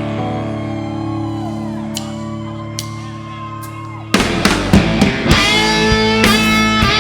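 Live rock band: an electric guitar chord rings and slowly fades, then about four seconds in the band comes in loudly with strummed electric guitar chords and drum hits.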